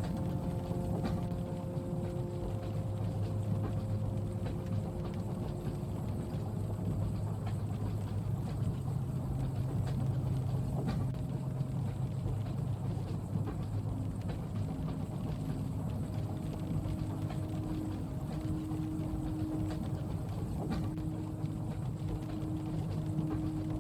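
Steady low rumble of a moving train heard from inside the carriage, with faint humming tones and scattered light ticks of rain on the window.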